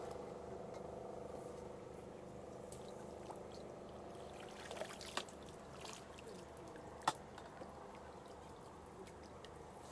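Landing net worked in the shallow lake water and lifted out, water trickling and dripping from its mesh. It is faint, with a few light clicks, the sharpest about seven seconds in.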